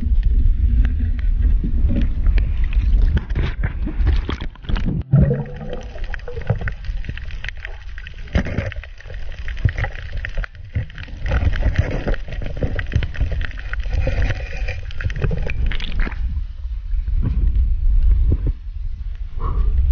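Water noise around a free diver's camera as it goes under and back to the surface: gurgling, sloshing and splashing over a steady low rumble.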